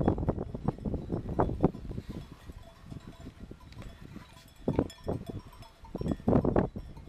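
Bells on a grazing flock of sheep clanking irregularly, in clusters, with a quieter stretch in the middle.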